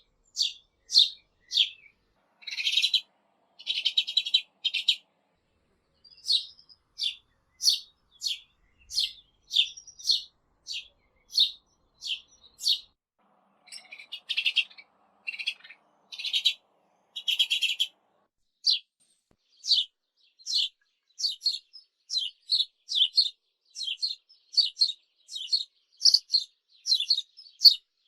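Sparrow chirping over and over: short, high chirps about one to two a second, broken twice by longer rapid chattering runs, once a few seconds in and again around the middle.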